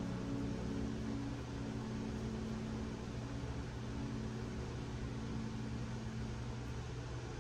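Steady low hiss with a faint low hum, as soft held notes of background music die away over the first few seconds.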